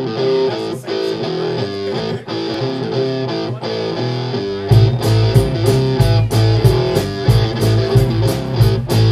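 A live rock band. Electric guitar and bass play a repeated riff, then the drum kit comes in about halfway with a steady beat and the sound fills out and gets louder.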